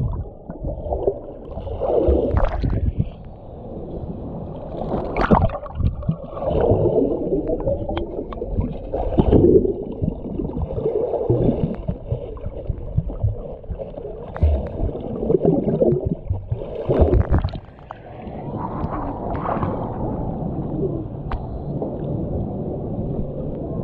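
Muffled underwater pool sound heard through a submerged camera: gurgling bubbles and the thrash of a child swimming and kicking close by, coming in irregular surges. About three quarters of the way through it settles into a steadier wash of water around the camera.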